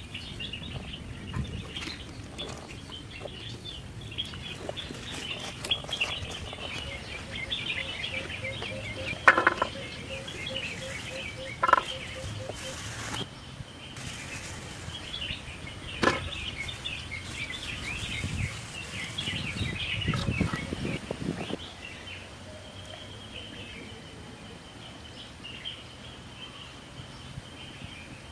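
Birds chirping steadily in the background, with three sharp knocks around the middle and a brief low rumble later on.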